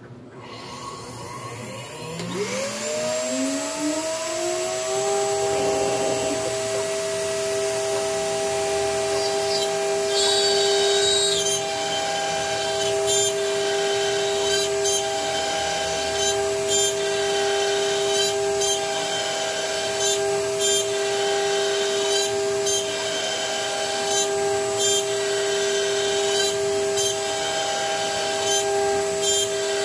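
CNC router spindle spinning up, its whine rising in pitch for about three seconds and then holding steady at speed. From about ten seconds in, the end mill cuts into a wooden board, giving a short rasp roughly every second and a half as it passes back and forth.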